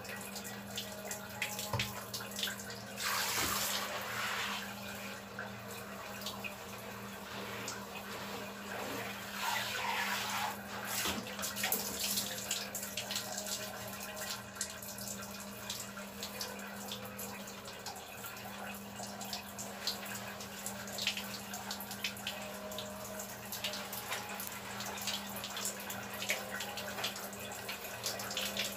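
Water running and splashing as a person bathes, with scattered drips and small splashes and louder rushes of water about three and ten seconds in.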